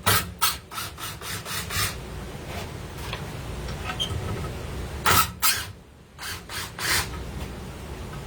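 Screws being backed out of reclaimed wood with a drill and driver bit, the screws rasping against the wood as they turn out. There is a quick run of sharp knocks in the first two seconds and a few more around five to seven seconds in.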